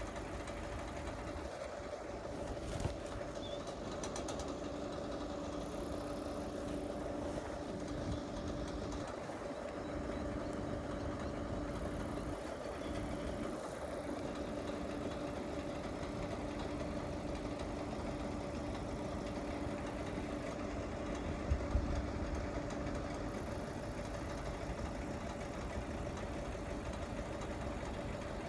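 Engine of a small parked truck idling steadily, a constant hum. A couple of brief knocks come about three-quarters of the way through.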